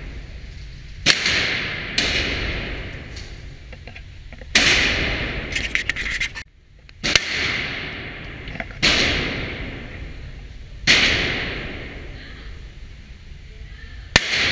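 Glock pistol fired in slow single shots, seven in all, one to three seconds apart. Each shot is a sharp crack followed by a long echoing decay from the indoor range's concrete lane.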